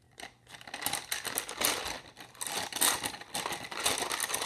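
Wooden colored pencils rattling and clicking against each other and the plastic cup they stand in as they are stirred by hand: a dense, irregular clatter that starts just after the beginning and grows busier about a second in.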